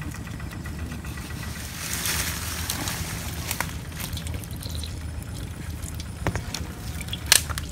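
A peeled lime squeezed by hand, its juice dribbling into a metal wok, over a steady low rumble, with a few sharp clicks.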